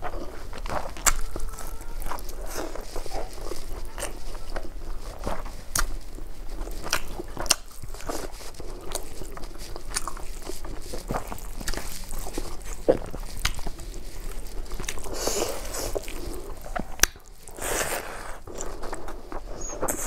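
Close-miked chewing of hand-fed mouthfuls of rice and dry-fried vegetables, full of sharp wet mouth clicks and smacks.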